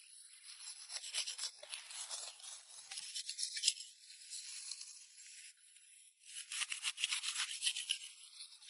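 Leafy plants rustling and crackling as they are handled and picked, in bursts of a second or two with a short lull just past the middle.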